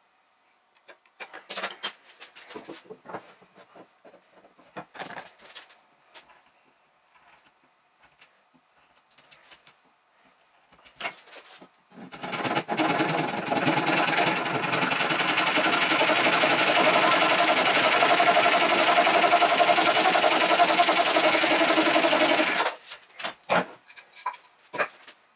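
Light taps and clicks of marking out with a square, then about halfway through a handsaw cutting wood for about ten seconds. The footage is sped up four times, so the saw strokes run together into one continuous rasp, which stops suddenly near the end.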